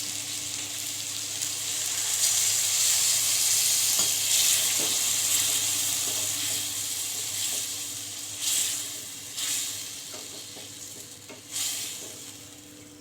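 Chopped tomatoes and ground spices sizzling in hot oil in a pan while being stirred, for the sautéing stage of a bone soup's tempering. The sizzle is strongest in the first half and dies down, with a few short scrapes of the spoon against the pan near the end.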